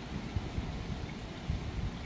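Steady hiss of rain with an irregular low rumble surging underneath, a loud background noise of unknown source that drowns the rain.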